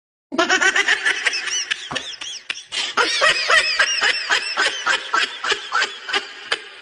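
Laughter in quick, repeated bursts with rising and falling pitch, starting a moment after a brief silence.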